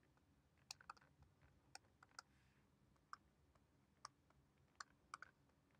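Near silence broken by about nine faint, irregular clicks of a stylus tapping on a pen tablet as numbers are handwritten.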